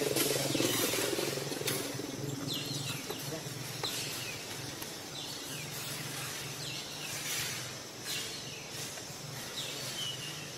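Outdoor ambience with a short, falling, high-pitched chirp repeating about once or twice a second from a couple of seconds in, a few sharp clicks, and a low steady hum beneath.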